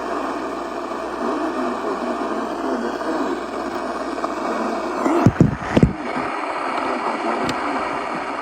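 Weather radio receiver hissing with static between broadcasts, with a faint steady tone under it until about five seconds in. A few loud thumps come about five to six seconds in.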